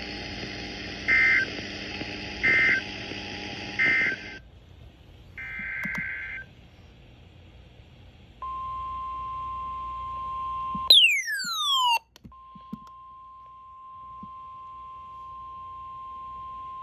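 Emergency Alert System broadcast tones: three short bursts of SAME data tones about a second and a half apart, the end-of-message code, then one more data burst, then the steady weather-radio alert tone. About eleven seconds in the tone is cut by a loud, quick falling chirp before it resumes.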